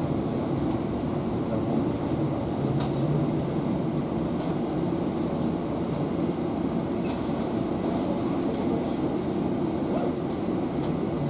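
Passenger train carriage heard from inside: a steady low rumble and hum, with faint scattered clicks and ticks.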